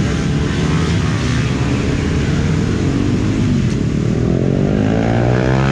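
Motorcycle engine running loudly, its revs climbing steadily from about three and a half seconds in.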